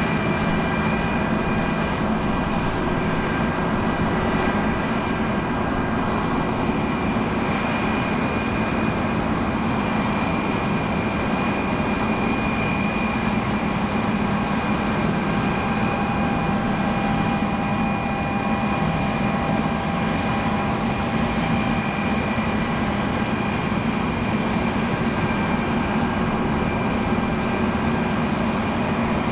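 John Deere T670i combine harvester running steadily under load while cutting barley: an even engine drone with a constant high whine from the threshing drives over it.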